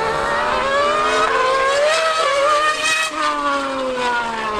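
A 2013 V8 Formula 1 car and a Yamaha R1M superbike racing on track, their engines screaming as the pitch climbs under acceleration. About three seconds in, the pitch drops away as they pass by.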